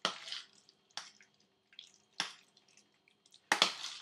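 Raw spiced minced meat with an egg being kneaded by hand in a steel pot: wet squelching and slapping strokes, four short bursts about a second apart.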